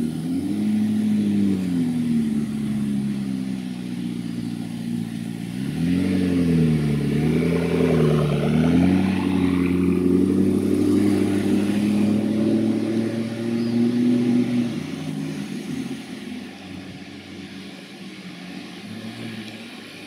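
McLaren MP4-12C's twin-turbo V8 revving and accelerating past, its pitch rising and dropping several times. About fifteen seconds in the engine note falls away and the last few seconds are quieter.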